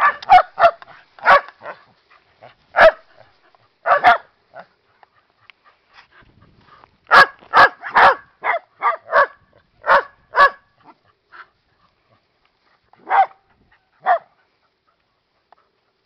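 Sheltie barking in short, sharp barks: about six in the first few seconds, then a quicker run of about nine after a pause, and two more near the end.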